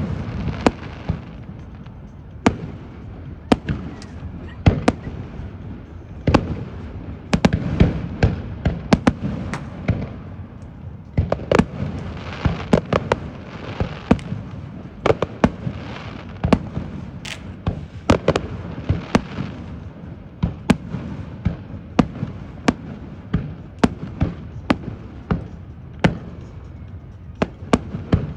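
Fireworks display: aerial shells bursting in quick succession, sharp bangs often several a second over a constant low rumble.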